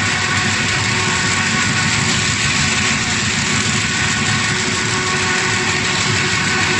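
Automatic V-bottom paper bag making machine running steadily, paper moving through its forming section. A constant loud hum and hiss with several steady tones in it.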